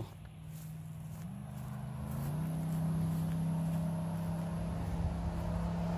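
A truck engine running hard while standing still, making a lot of noise. Its pitch steps up twice in the first couple of seconds as it revs higher and grows louder, then it holds a steady drone.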